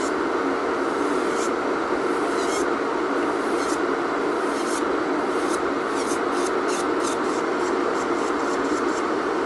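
Short scraping strokes of a nail file over a fingernail, coming faster from about six seconds in, over a steady machine hum.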